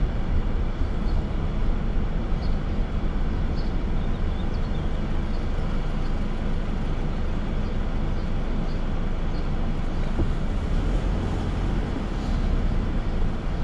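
Toyota Hilux pickup's engine and tyre noise heard from inside the cab while driving: a steady low rumble.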